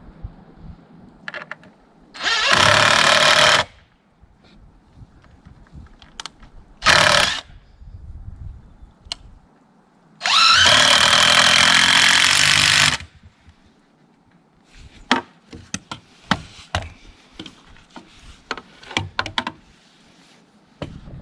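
A handheld power tool, like a drill driving fasteners, running in three bursts: about a second and a half, a short one, then nearly three seconds. After that comes a scattered run of sharp knocks and clicks.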